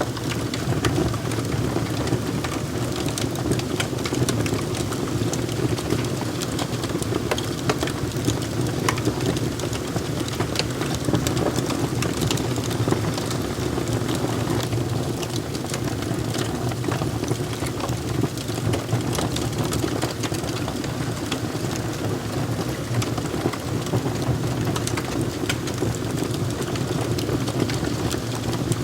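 Wood fire crackling, with a steady low rush of flames under frequent sharp pops and snaps.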